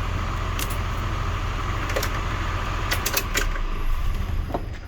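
Hyundai Mega Truck idling with its Allison transmission oil fan running again after a relay replacement, a steady hum and whir with scattered light clicks and rattles. The running sound drops away shortly before the end.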